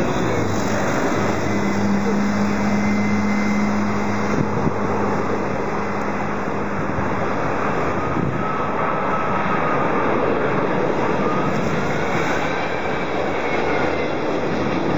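Jet engines of a Qantas Airbus A380 (four Rolls-Royce Trent 900s) on final approach, passing low with landing gear down. It is a steady loud rumble, with a faint engine whine that glides upward in pitch in the second half.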